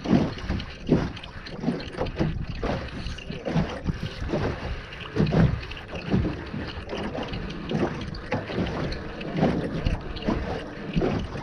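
Wind buffeting the microphone in uneven gusts, a low rumble that surges and drops every second or so.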